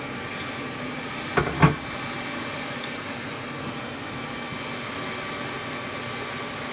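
Air blower of a coal forge running steadily, with two sharp hammer strikes on metal about a second and a half in, the second louder.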